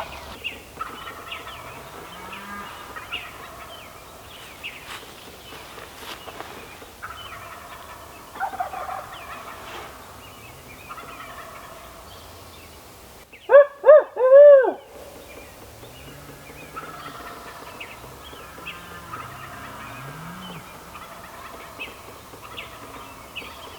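Two wild turkey toms gobbling again and again from the roost, distant and hammering, as roosted toms do at first light. About two-thirds of the way through there is a louder, closer burst of three quick rising-and-falling calls.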